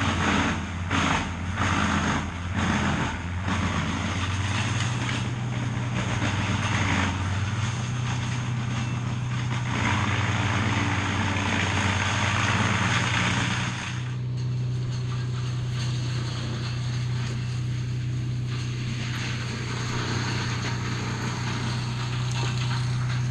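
Engine running steadily with a constant low hum. A hissing sound over it swells in the first few seconds and again around ten seconds in, then drops away suddenly about fourteen seconds in while the engine runs on.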